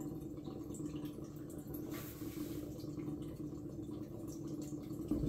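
Turbo cider running through a plastic tube into a glass demijohn, a quiet trickle of liquid filling the jar. The tube is run to the bottom of the jar to keep splashing down. A steady low hum runs underneath, with a brief hiss about two seconds in.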